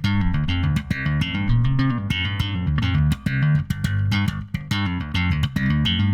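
1973 Gibson SB-350 electric bass played slap style with both pickups on: fast, sharp slapped and popped notes over deep changing bass tones, with a sustained low note ringing out at the end.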